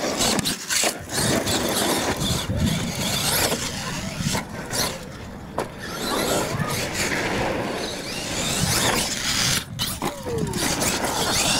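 Radio-controlled monster truck driving over gravel: its motor whines up and down with the throttle while the tyres scrabble and crunch over the stones.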